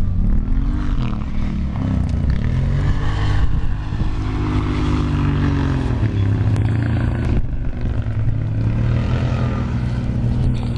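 Off-road vehicle engine running close by, its pitch rising and falling as the throttle is worked, with a steadier hum in the middle stretch.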